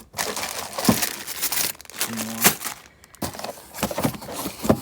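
Plastic packaging of pegboard hooks crinkling and rustling as it is handled, with scattered clicks.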